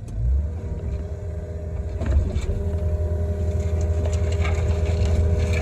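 Kobelco SK55 mini excavator's diesel engine running steadily, a low rumble with a steady whine on top and a few light ticks.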